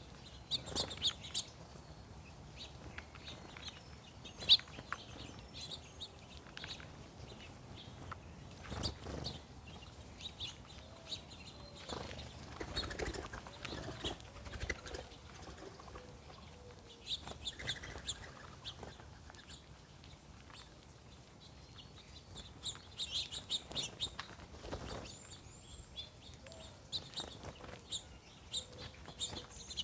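Small songbirds chirping in short clusters, with wings flapping and fluttering now and then as mourning doves come and go.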